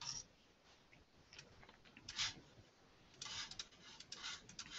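Faint, scattered clicks and taps of a computer mouse and keyboard, with a quick run of them a little past three seconds in.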